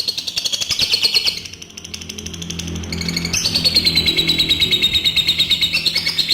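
Adult lovebird singing its long 'ngekek' chatter: a rapid, high, evenly pulsed trill. It breaks off about a second in and starts again about three seconds in, running on long.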